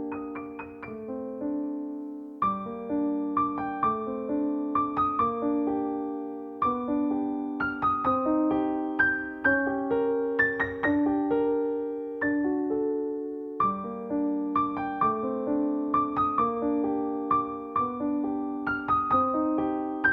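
Background music: a piano piece of chords and single notes struck and left to fade, in an unhurried rhythm.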